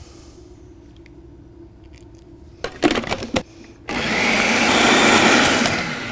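A few sharp plastic clicks and knocks as the food processor's lid and feed-tube pusher are handled, then the food processor's motor runs for about two seconds, blending chickpeas into a paste, and winds down near the end.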